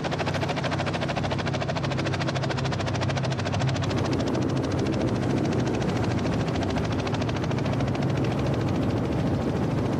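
Small two-bladed helicopter with its rotor spinning at full speed: a steady, rapid, even rotor chop over a low engine drone.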